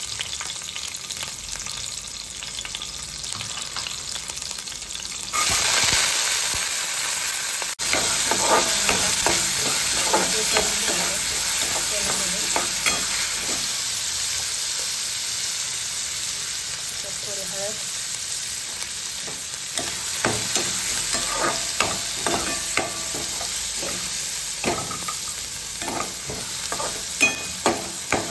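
Hot oil sizzling in a metal kadhai with green chillies and cumin and mustard seeds; about five seconds in, the sizzling turns suddenly louder as soaked, wet chana dal goes into the oil. A steel spoon then scrapes and clinks against the pan as the dal is stirred.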